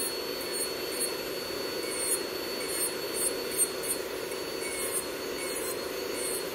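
Electric manicure drill spinning a ceramic corn-cut bit with a steady high whine, grinding old gel polish off a nail in short repeated passes that each add a brief scratchy hiss. A nail dust extractor fan hums steadily underneath.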